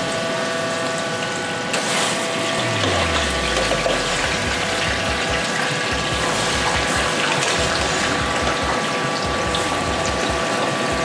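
Diced plantain frying in a deep fryer: the steady crackling sizzle of hot oil, with a steady hum alongside it.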